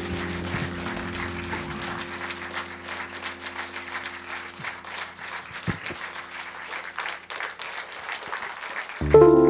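Audience applauding while the band's last held chord dies away. Near the end a keyboard suddenly strikes a loud sustained chord.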